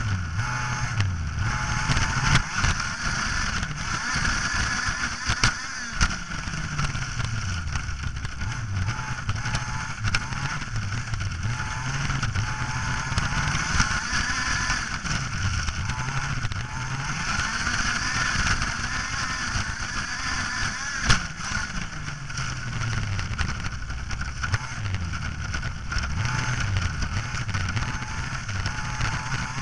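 A radio-controlled model vehicle's motor running as it drives over grass, its pitch rising and falling again and again with the throttle. A few sharp knocks break in, the loudest about three quarters of the way through.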